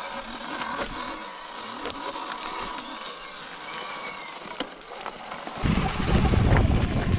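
Riding noise of a Sur-Ron electric dirt bike on a dirt trail covered in leaf litter: a steady hiss of tyres and drivetrain with no engine note. About five and a half seconds in, it switches abruptly to a loud, low, uneven rumble.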